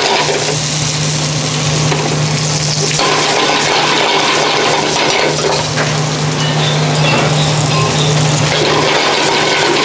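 Peppers, onions and garlic sizzling in an aluminium frying pan over a gas burner, stirred with a metal spoon that clicks and scrapes against the pan, over a steady low hum.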